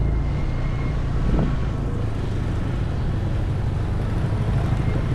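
Steady low rumble of a motorbike being ridden along a city street.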